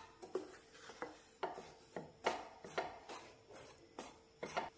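Wooden spatula scraping and stirring dry gram flour (besan) in a stainless steel frying pan, a faint rasp about twice a second, as the flour is dry-roasted without ghee.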